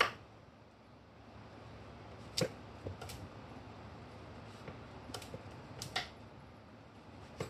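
Kitchen knife slicing through raw peeled pumpkin and knocking on an end-grain wooden chopping board: several sharp, irregular knocks a second or more apart.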